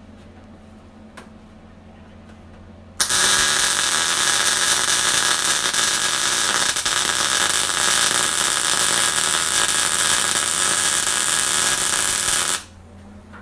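Electric welding arc tacking a steel shock-mount bracket in place: a loud, steady crackling hiss that starts abruptly about three seconds in, runs for nearly ten seconds and cuts off suddenly.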